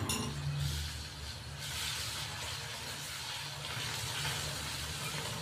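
Ginger, garlic and green chilli paste sizzling in hot oil with browned onions in a karahi as it is stirred; the sizzle gets louder about a second and a half in.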